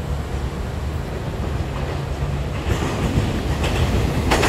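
Taiwan Railway EMU3000 electric multiple unit approaching: a low rumble that grows louder from about halfway, with wheel clacks over rail joints starting near the end.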